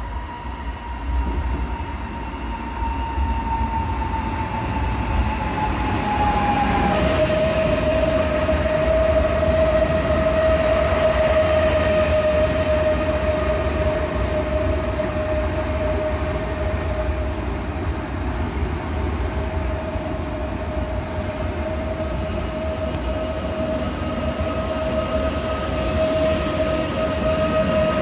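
PKP Intercity electric multiple unit running into an underground station platform. Its traction motors whine over a low rumble of wheels on rail. The whine falls slowly, then steps down to a steady lower pitch about seven seconds in, as the train gets louder.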